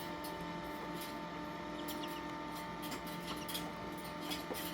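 Faint, scattered light ticks and scratches of a gosling's beak pecking and tearing at paper in its box, over a steady electrical hum.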